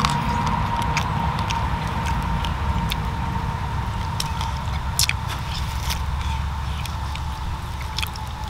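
Steady low rumble with scattered sharp clicks and crackles, the loudest about five seconds in, over a faint steady high tone.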